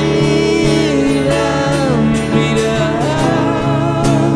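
Live band playing a German rock song: male singing at the microphones over acoustic and electric guitars.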